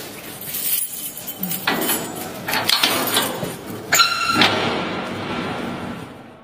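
A bunch of keys jangling while a padlock on a metal cell door is unlocked, with a quick run of metallic clicks and rattles. About four seconds in comes one short, loud metallic ring as the lock comes free and the door is opened; the ring then fades.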